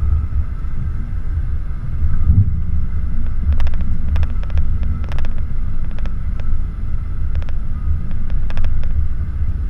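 Jeep Wrangler TJ running at low speed on a dirt trail, a steady low rumble of engine and drivetrain heard through the vehicle-mounted camera. From about a third of the way in there are repeated sharp clicks and rattles.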